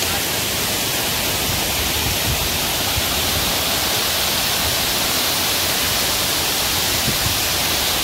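Waterfall rushing steadily: an even wash of falling-water noise with no break.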